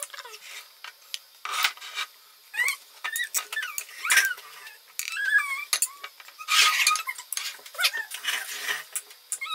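Kitchen knife cutting through boiled potato on a plate: short irregular strokes with the blade scraping, squeaking and tapping against the plate.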